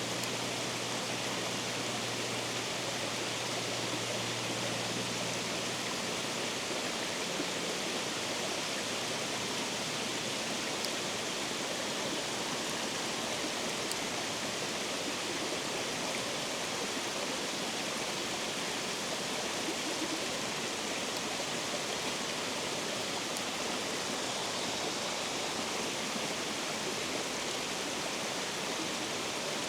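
Steady rush of water pouring through a spillway, an even, unbroken noise.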